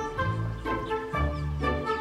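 Background music with a bass line whose notes change about twice a second.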